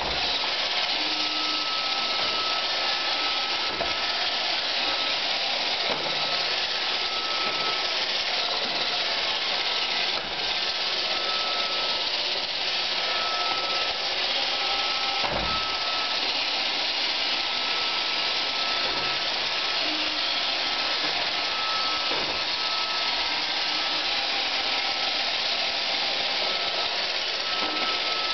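iRobot Roomba 520 robot vacuum cleaning a laminate floor: a steady whir and hiss from its vacuum motor and brushes, with a faint high whine that comes and goes. A few short knocks break in, the loudest about halfway through.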